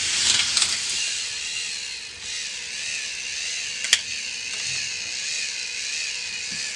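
K'nex ball machine running: its small electric motor whines steadily with a wavering pitch while the plastic mechanism rattles, and there is one sharp click a little before four seconds in.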